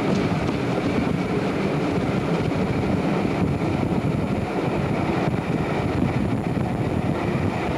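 Steady running noise of a train in motion, heard from on board as it travels along the track.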